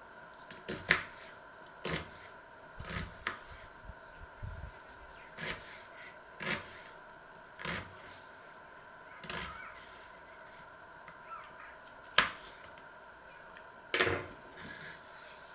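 Kitchen knife cutting a vegetable and knocking on a wooden cutting board, in irregular chops about once a second, the loudest ones near the start and near the end. A steady faint hum lies underneath.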